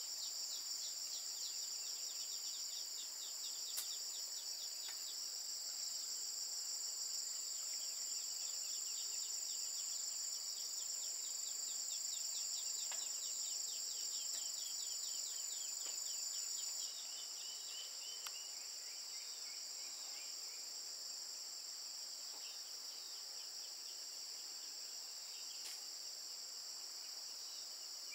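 Steady high-pitched insect chorus with rapid runs of short chirps over it. About two-thirds of the way through, the chorus drops slightly in level and changes character.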